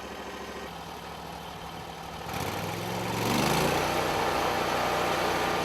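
Portable sawmill's engine idling, then throttling up about two seconds in with a rising pitch and running steadily at high speed, with a hiss over the top.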